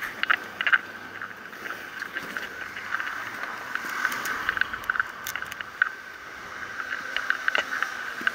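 Ride noise from a low-mounted camera rolling along a paved city street: a steady high hum with frequent sharp rattles and clicks.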